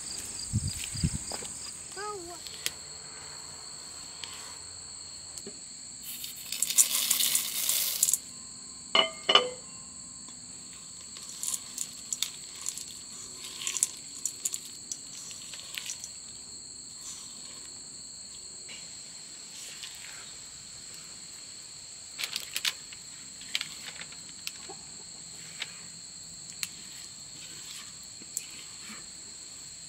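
Steady high-pitched insect chorus, a drone at two pitches that never breaks. Now and then a spatula scrapes and taps around a stainless steel mixing bowl, with a brief rustle about seven seconds in.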